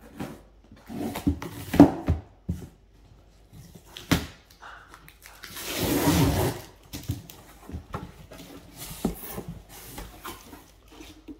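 Packing tape ripped off a cardboard box: a tearing sound about a second long around six seconds in, amid knocks and rustles of the cardboard box being handled and its flaps pulled open.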